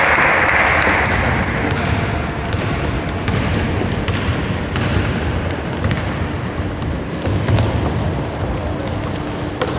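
Live basketball play on a hardwood court in a large hall: the ball bouncing as it is dribbled and passed, players' footsteps, and several short, high sneaker squeaks on the floor.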